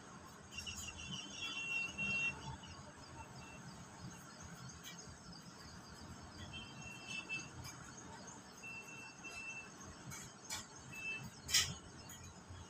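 Faint outdoor dawn ambience with several short, high, steady whistling bird calls, spaced a few seconds apart. A couple of sharp clicks come in the second half, the loudest shortly before the end.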